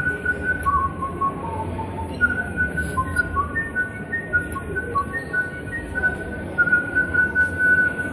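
A whistled tune from the whistling oyster exhibit: a run of short, clear held notes that step up and down in pitch, over a low steady room hum.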